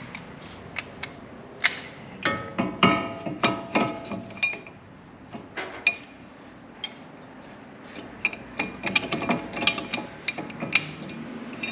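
Hand tools and steel brake hardware clinking and tapping while rear brake parts are fitted: a string of sharp metallic knocks, some of them ringing briefly.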